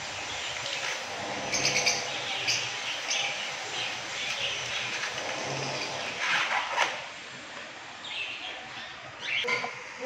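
Flock of caged budgerigars chattering and chirping continuously, with a brief rustling handling noise about six to seven seconds in.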